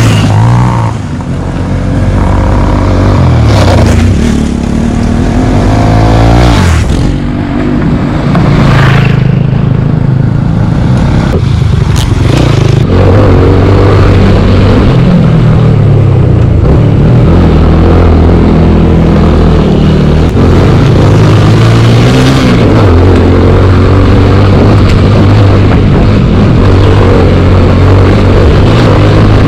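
Motorcycle engine running under load over a rough, rocky dirt track, its revs rising and falling repeatedly with throttle and gear changes.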